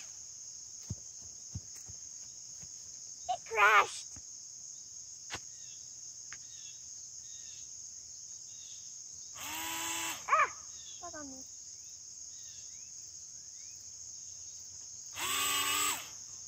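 Steady, high-pitched chirring of insects in the grass and trees, with a few short pitched, warbling sounds about 3.5 s in, about 10 s in and near the end, and a few faint clicks.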